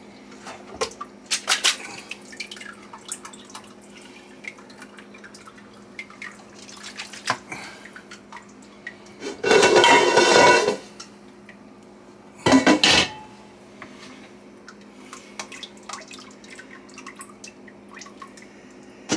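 Kitchen work sounds: pots, dishes and utensils clinking, with a loud burst of running or splashing liquid lasting about a second and a half a little past halfway, and a shorter one soon after, over a faint steady hum.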